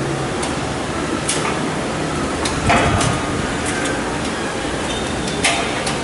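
Small metal clicks and knocks, about six of them and the loudest a little before halfway, as a screw and nut are worked by hand through a patch panel's mounting ear into a steel rack rail.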